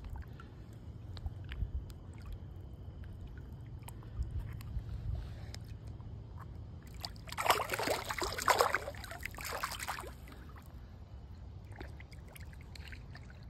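Water lapping and trickling around a largemouth bass held in shallow water for release, with a loud burst of splashing a little past halfway as the fish kicks and swims off. A low steady rumble runs underneath.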